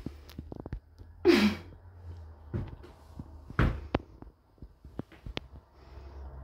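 Soft footsteps and knocks of someone creeping up wooden stairs while holding a phone camera, with scattered light clicks and two short hissy rushes of noise about a second and three and a half seconds in.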